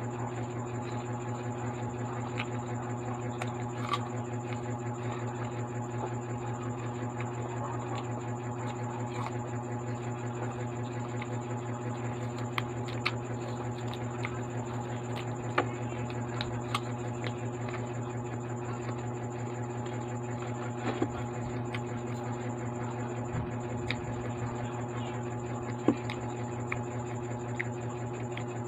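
A person eating apple and fries: scattered sharp clicks and crunches of biting and chewing over a steady low hum.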